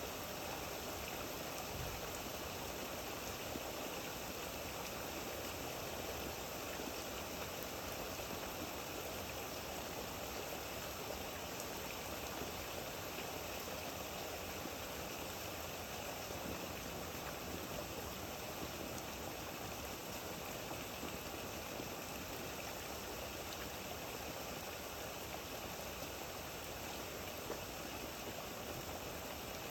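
Steady rain falling, an even continuous hiss that does not change.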